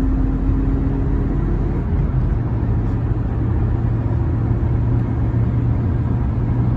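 Inside the cabin of a Hyundai Solaris with the 1.4-litre, 107 hp engine, driven hard on the highway toward its top speed: a steady loud drone of engine, tyre and wind noise. About two seconds in, the hum moves down to a deeper pitch.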